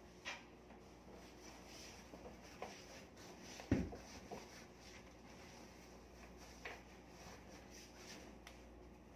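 Quiet rustling of a bed sheet being smoothed and tucked under a mattress, with several soft knocks; the loudest is a dull thump a little before halfway.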